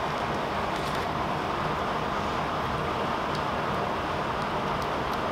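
Steady rushing background noise, like a fan or air conditioner running, with a few faint light clicks from small plastic drill bags and jars being handled on the table.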